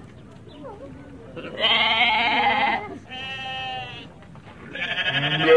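An animal bleating three times, each call quavering: a long call, a shorter softer one, then a loud one starting near the end.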